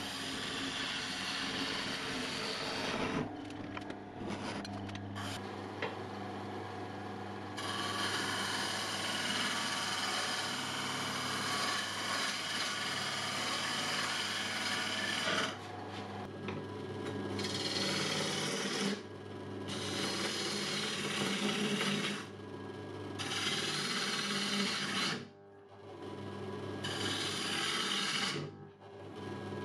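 A wood lathe runs with a steady motor hum while a bowl gouge cuts the end grain of a spinning, old and dry wood bowl blank. The cut gives a loud rasping scrape that comes in passes of a few seconds each and stops briefly between them.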